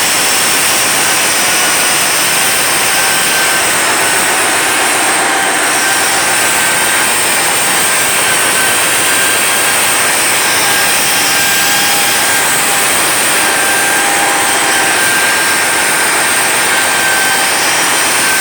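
Onsite crankshaft grinding machine running: a steady, loud hiss with a high-pitched whine, and fainter tones that come and go.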